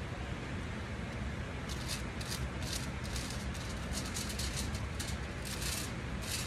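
Tint brush stroking lightener onto a hair section laid on aluminium foil: a run of short, irregular scratchy strokes starting about two seconds in, over a steady low hum.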